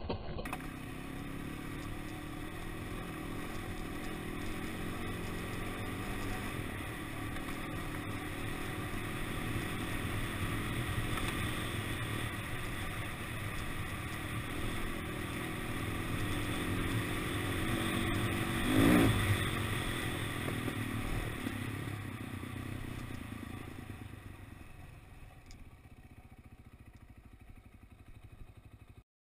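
KTM 530 EXC single-cylinder four-stroke motorcycle engine running at low speed across a wooden plank bridge, with loose boards clattering under the tyres. There is one brief louder surge a little under two-thirds of the way through, and the sound grows quieter near the end.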